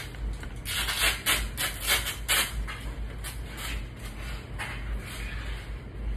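Disposable plastic-backed underpads (Chucks pads) rustling and crinkling as they are handled and unfolded: a quick run of rustles about a second in, then lighter ones.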